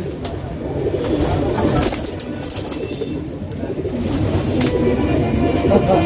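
Many domestic pigeons cooing at once in a crowded loft, a continuous chorus of low, overlapping coos.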